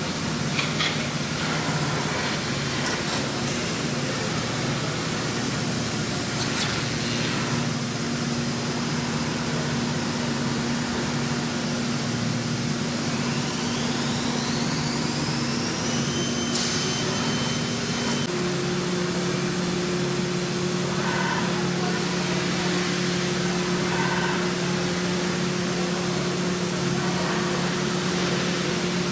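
Three-axis CNC milling machining center running, a steady mechanical hum with a noisy hiss. About halfway through, a high whine rises and holds for a few seconds; when it stops, the hum steps to a different pitch.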